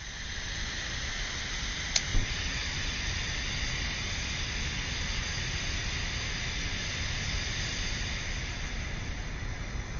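Backpacking canister gas stove burning with a steady hiss over a low rumble. A sharp click and a thump come about two seconds in.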